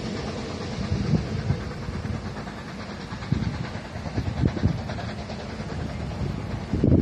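Narrow-gauge diesel locomotive's engine running steadily in the yard, with gusts of wind buffeting the microphone several times.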